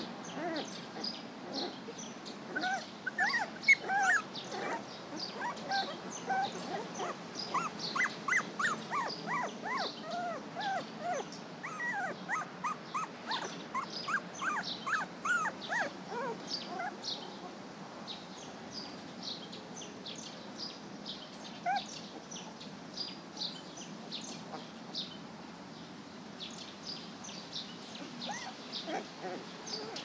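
Puppies whimpering and squeaking in many short, rising-and-falling cries, thick in the first half and thinning out after about halfway, over steady chirping of small songbirds.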